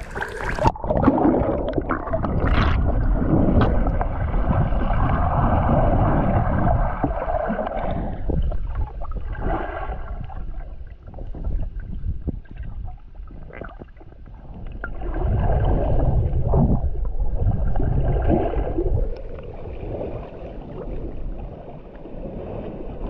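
Muffled underwater rushing and gurgling of water stirred by swimmers kicking, heard through a camera held below the surface. It is loudest for the first several seconds and again in a stretch about fifteen seconds in, and quieter between.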